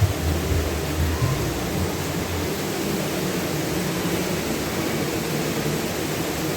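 Steady hiss of rain falling, with a low rumble in the first couple of seconds.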